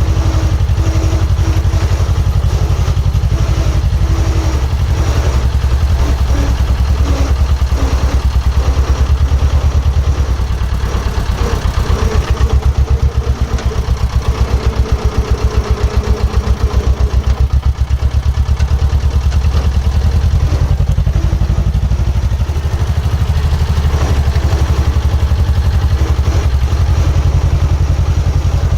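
Close diesel engine of a compact excavator or site dumper, running steadily under work with a heavy, fast-pulsing beat, and occasional clatter and knocks from the machine working.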